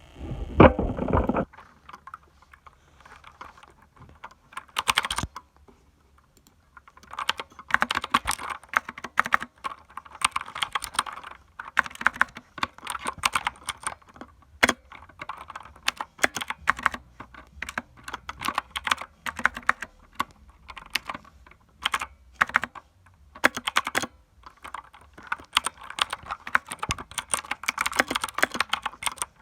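Mechanical keyboard being typed on, with a typewriter-like clack, in runs of fast keystrokes separated by short pauses. A loud low thump at the very start.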